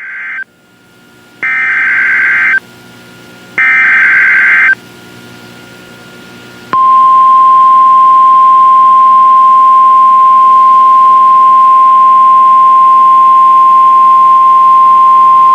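Emergency Alert System tornado warning signal: the end of one SAME header data burst, then two more buzzing data bursts about a second long each, with short gaps between them. About seven seconds in, the steady single-pitch 1050 Hz NOAA Weather Radio alert tone starts and holds for about nine seconds.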